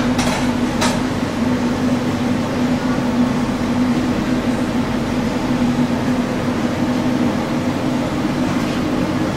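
Steady mechanical hum of a commercial kitchen, with a low droning tone throughout and two faint clicks near the start.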